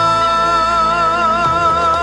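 Background music from an Islamic devotional song (sholawat): a long held melody note over the accompaniment, steady at first and then wavering with a growing vibrato.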